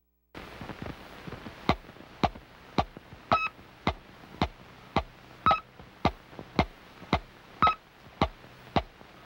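Electronic title-sequence sound effects: a steady train of sharp clicks, about two a second, with a short high beep on every fourth click, over a steady hiss.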